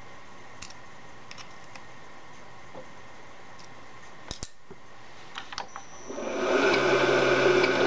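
A few light clicks and taps as a boring head is set with a hex key and the keys are laid down. About six seconds in, the vertical milling machine's spindle motor starts and runs steadily with a low hum, turning the boring head.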